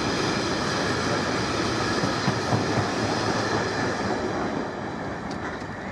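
Wagons of a Class 66-hauled ballast train rolling past on the rails with a dense, steady rumble and clatter of wheels. It fades as the tail of the train goes by, from about four seconds in.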